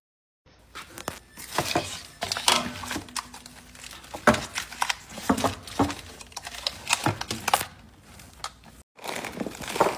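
Plastic bags of frozen meat crinkling and rustling as they are handled and packed into a freezer, with irregular knocks of bags and packages being set down.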